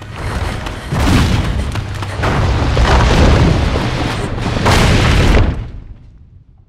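Film sound effect of a cave collapsing: rock falling with heavy rumbling booms that surge three times, then die away near the end.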